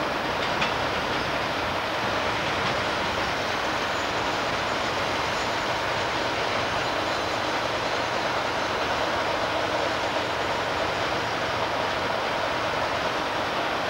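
Freight train's container wagons rolling away over the track: a steady noise of wheels on rail, with a few faint clicks near the start.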